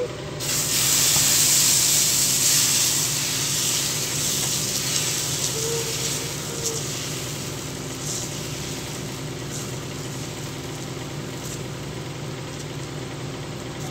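Dosa batter of wheat flour and rava sizzling as it hits a hot dosa griddle and is spread round with a ladle. The sizzle starts loud about half a second in and slowly dies down.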